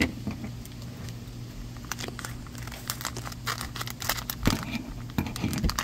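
Foil blind-bag packet crinkling as it is handled and cut open with scissors, in clusters of sharp crackles about two seconds in and again near the end.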